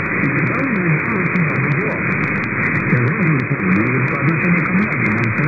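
Shortwave AM broadcast of Adventist World Radio on 9460 kHz, received from far away: a weak voice speaking in Russian, buried in steady hiss and fading. The sound is narrow and muffled, with faint clicks.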